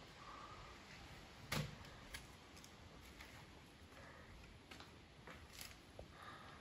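Near silence: quiet room tone with a few faint clicks and one soft knock about one and a half seconds in.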